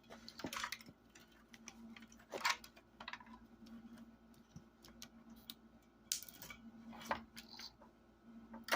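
Scattered light clicks and taps of small metal parts and wire being handled during a computer monitor teardown, over a faint steady hum.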